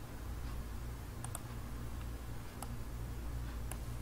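Computer mouse clicking: a few sharp clicks about a second apart, one of them a quick double click, over a steady low hum.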